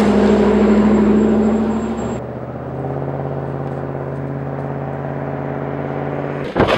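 Road traffic: cars driving past with a steady engine and tyre noise and no horns honking. The sound changes abruptly about two seconds in to a quieter, lower engine hum.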